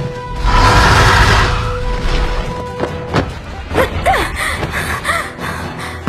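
Film soundtrack of music and action effects. A loud rushing surge comes in about half a second in over sustained music tones, followed by several sharp cracks and short rising and falling cries in the middle.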